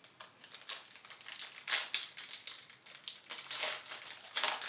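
Foil Yu-Gi-Oh! booster pack wrapper crinkling and tearing as the next pack is opened, with cards being handled; irregular crackles, the loudest about two seconds in.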